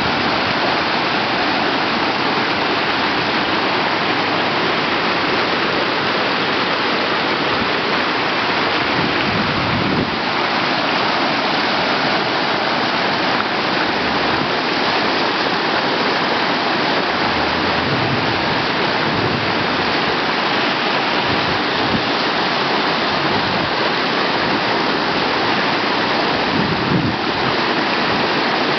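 Whitewater rushing through a river play park's standing wave, a loud, steady rush with no breaks.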